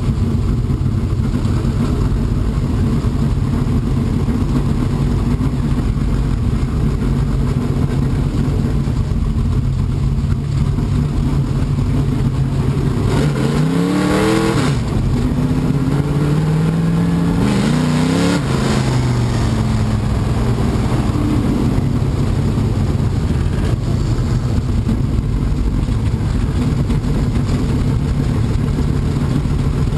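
V8 engine of a dirt-track modified stock car heard from inside the cockpit, running loud and steady under way, with the revs climbing sharply twice, about 13 and 17 seconds in, as it accelerates.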